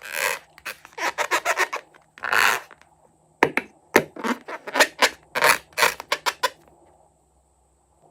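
Slime-making handling sounds: a quick, uneven run of scrapes and crackling clicks, which then stop.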